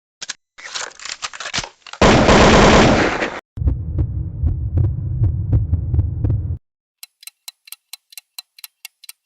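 A run of separate short sound-effect clips: scattered crackling clicks, a loud burst of noise, a low humming throb with a regular pulse, then rapid evenly spaced high ticks, about five a second.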